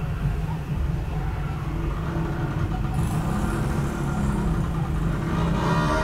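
Low, steady rumble of a motor vehicle's engine running close by, with a higher drone building in near the end.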